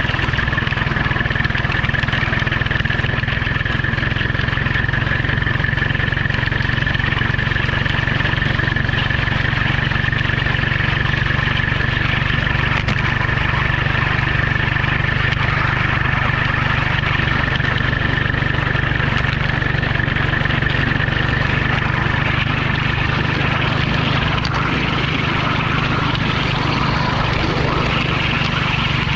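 A motor running steadily at constant speed: an even low drone with a steady high whine above it, unchanging throughout.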